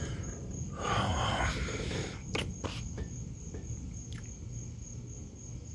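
Crickets chirping in a steady, fast pulsing trill, with a brief rustle about a second in and a few sharp clicks.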